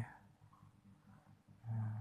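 A man's short, low hum without words, about one and a half seconds in.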